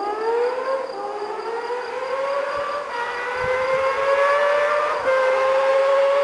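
Honda CBX 1047 cc inline six-cylinder engine accelerating hard through the gears: a smooth howl that rises steadily in pitch, dropping back at a shift about a second in and again near five seconds.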